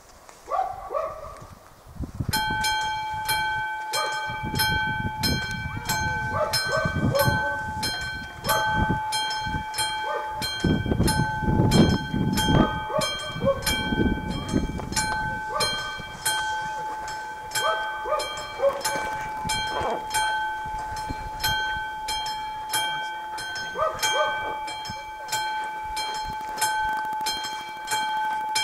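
A classic mechanical level-crossing bell starts ringing about two seconds in, with rapid, evenly spaced strokes that keep going. This is the crossing's warning coming on for an approaching train. A dog barks again and again over it, and a low rumble swells in the middle.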